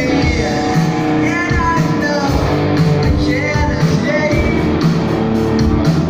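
Live rock band playing: a lead singer over electric guitars and drums with a steady beat, heard from the audience in a club.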